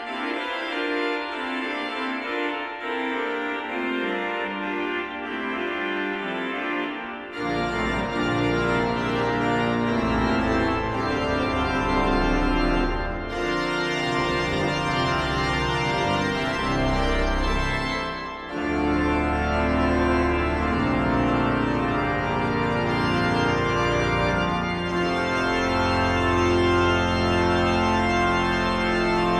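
Pipe organ playing a fanfare, with the pedal bass silent at first, then entering about seven seconds in under the full organ.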